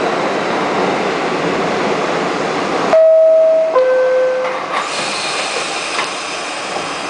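R68A subway car's two-tone door chime, a higher tone then a lower one, about three seconds in, sounding as the doors are about to close. Before it a steady rushing noise of the stopped train, and after it a hiss.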